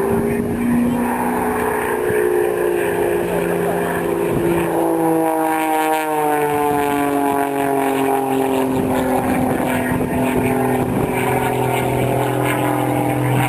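Aerobatic aircraft's piston engine and propeller running through a display manoeuvre, its note shifting in pitch, with a long fall in pitch across the middle.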